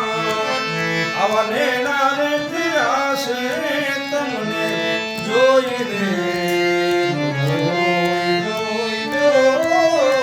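Devotional bhajan music: a voice singing gliding, ornamented phrases over sustained harmonium chords and tabla.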